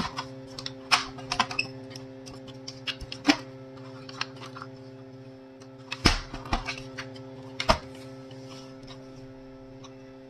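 Irregular sharp plastic clicks and knocks as a copier's control-panel assembly is handled and its parts snapped into the housing, the loudest about six seconds in. A steady low hum runs beneath.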